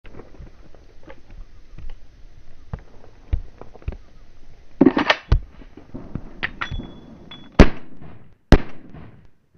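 Handgun handling: small metallic clicks and knocks, with a louder flurry of clicks about halfway through, then two loud handgun shots about a second apart near the end, each followed by a short echo.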